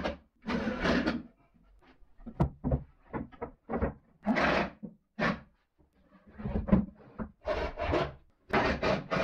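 Cordless driver sinking screws into plywood in short half-second bursts, between sharp knocks and scrapes of the plywood panels being handled.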